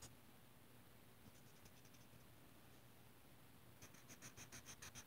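Crayola Color Wonder marker scribbling back and forth on its coated colouring sheet: faint and mostly still at first, then the quick scratchy strokes start again about four seconds in, at about six strokes a second.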